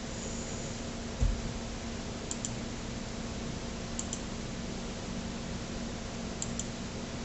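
Steady hiss and low hum of room tone, with a brief low thump about a second in and three faint double clicks spread over the rest.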